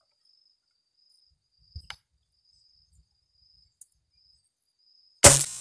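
A gun fired once at a bird, a sudden loud report about five seconds in with a ringing tail. Under it an insect chirps in steady high pulses, and a couple of soft clicks come about two seconds in.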